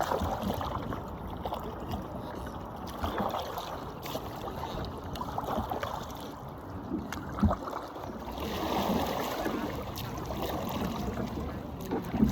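Kayak on the water, with paddle strokes splashing and dripping and a couple of sharp knocks, the clearest about seven and a half seconds in.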